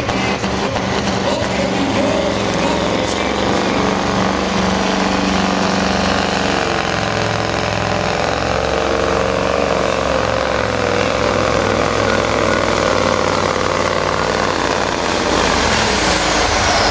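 A Scania supersport pulling truck's diesel engine running hard under load as it drags the pulling sled. The sound is loud and steady, with its pitch wavering up and down.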